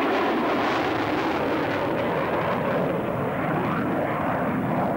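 Panavia Tornado F3 jet flying past, the continuous noise of its twin RB199 turbofan engines steady in level and sliding lower in pitch as it heads away.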